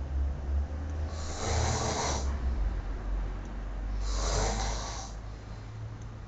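A man snoring in his sleep: two long, rasping snoring breaths about two and a half seconds apart, over a steady low hum.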